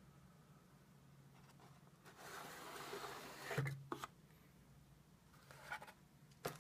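Cardboard insert tray being slid up and lifted out of a packaging box: a dry scrape of card rubbing on card about two seconds in, then two soft knocks as it comes free, with a faint rustle of cardboard near the end.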